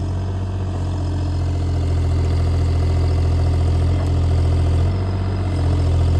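Bobcat E35 mini excavator's diesel engine running steadily while the machine works its hydraulics to lift and swing a log, the engine note dipping and rising again about five seconds in.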